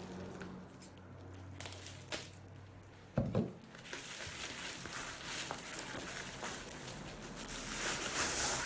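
Packaging being handled during unboxing: a single knock about three seconds in, then rustling and crinkling of wrapping that grows louder near the end.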